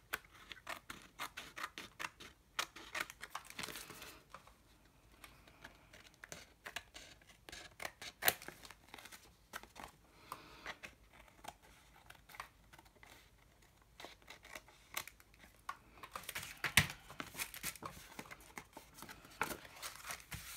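Scissors snipping along the edge of a cardstock sheet: a quick run of short cuts at first, then scattered snips and paper handling. Near the end, paper rustling and rubbing on a plastic sheet as the page is laid down and smoothed by hand.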